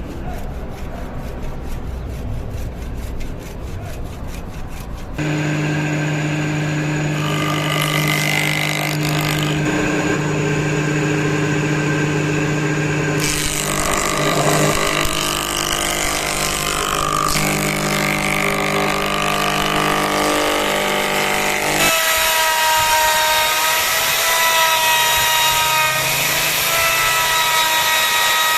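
A hand tool works wood in quick, regular strokes for a few seconds. Then an electric power tool starts and runs steadily at a constant pitch, with its sound shifting twice as the work on the axe changes.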